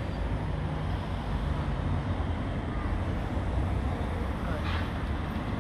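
Steady low rumble of a double Protos electric multiple unit train pulling away into the distance, mixed with wind buffeting the microphone.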